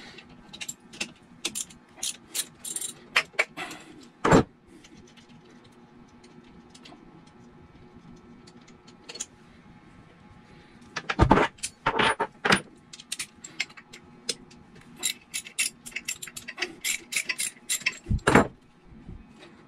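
Metal hand tools on bolts: a wrench and a socket ratchet clinking and clicking in irregular clusters as the bolts holding a marine generator's impeller housing are loosened, with a few heavier knocks. There is a quieter stretch in the middle.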